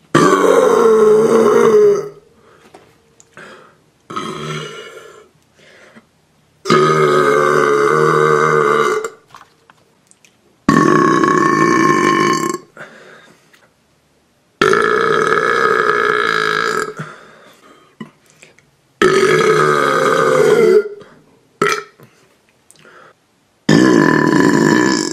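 A person burping on purpose: six long, loud burps of about two seconds each, a few seconds apart, the last still going near the end. Shorter, quieter sounds fall in the gaps between them.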